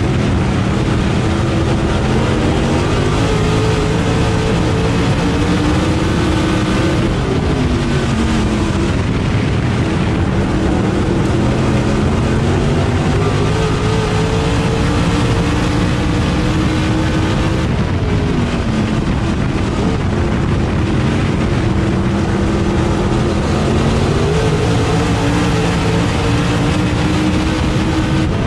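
Dirt super late model's V8 racing engine at full throttle, heard from inside the car's cockpit: its note climbs steadily along each straight and drops away as the driver lifts for each pair of turns, about every ten seconds, over a constant rush of tyre and wind noise.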